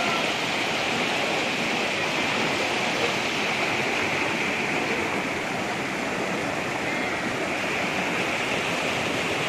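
Muddy floodwater rushing in a steady, turbulent torrent, churning white over broken debris and a collapsed structure in a flooded street.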